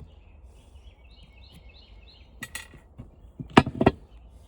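Hard objects knocking and clinking together: a short clatter about two and a half seconds in, then a louder group of sharp knocks near the end, as tools or fan parts are handled. Birds chirp faintly in the background.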